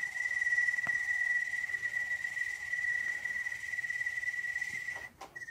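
A man imitating a Canadian toad's call with his voice: one long, high, steady trill that breaks off briefly near the end.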